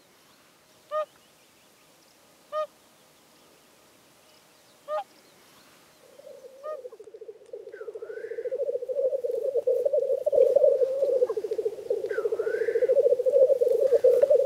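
A swan gives four short honking calls, a second or two apart. About six seconds in, the continuous low bubbling display song of lekking black grouse begins and grows louder, with two brief higher calls above it.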